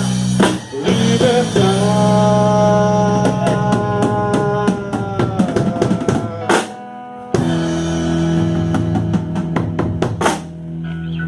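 Live band music with no singing: the drum kit plays fills and crashes over held electric guitar and bass chords, with a fast run of drum hits in the middle and a new chord struck about seven seconds in.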